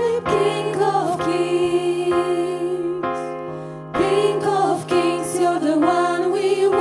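Worship song: a voice singing over sustained chords. The music thins out about three seconds in and swells back in a second later.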